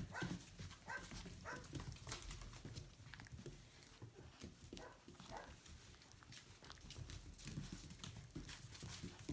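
Aussiedoodle puppies moving about: a few faint short squeaks in the first two seconds, and scattered light taps and scuffles.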